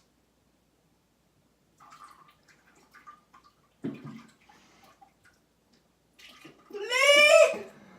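Faint rustling and a soft thump, then near the end a loud, drawn-out vocal sound from a person, its pitch rising and then holding.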